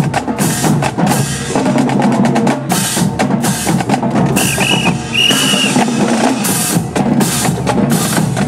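Marching drums playing a rhythmic cadence, with snare-like hits and bass drum beats. Two short high tones sound about halfway through.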